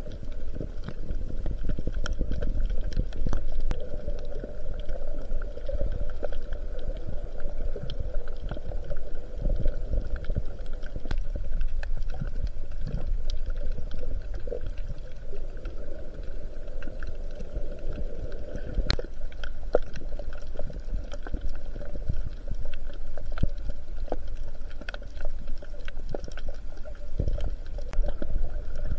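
Sea water heard through a camera held underwater: a muffled, steady rumble of moving water and bubbles, with scattered sharp clicks.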